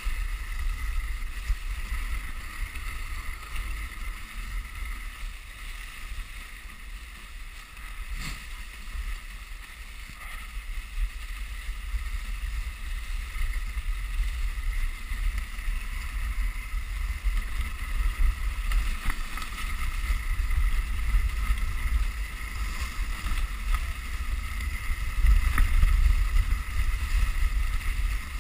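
Dog sled runners sliding over packed snow, a steady rushing scrape, with wind buffeting the sled-mounted microphone as a low rumble. A single knock about eight seconds in; the noise grows louder in the second half.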